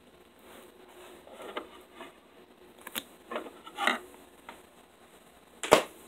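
Hands handling books and a pair of scissors on a tabletop: soft rustles and taps, a sharp click about three seconds in, a short run of rustling, then a louder knock near the end.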